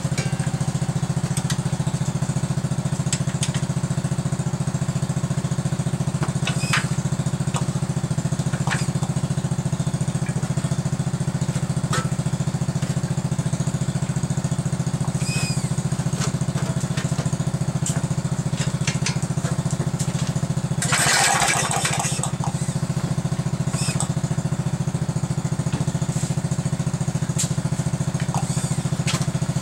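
Small air-cooled engine of an old garden tractor running steadily at idle just after a cold start, with light clicks and knocks from work on the engine and a brief louder surge about two-thirds of the way through.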